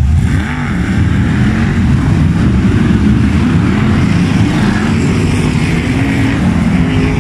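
Several F1 stock car engines racing in a pack, their revs rising and falling over one another as the cars lift off and accelerate.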